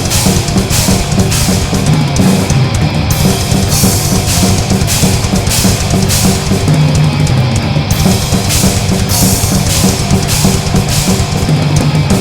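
Loud heavy metal music: a full band with drum kit, cymbal crashes on a steady driving beat, and dense low guitar and bass underneath.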